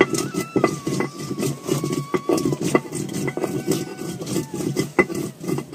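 Hand stone (batta) being rubbed back and forth over a flat stone slab (sil), grinding wet spice paste for masala: rhythmic gritty scraping with frequent sharp stone knocks. A faint, thin wavering tone sounds underneath.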